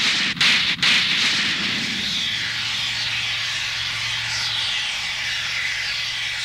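Sci-fi sound effect: a steady rushing noise, with a few brief breaks in the first second and a low hum coming in about two seconds in.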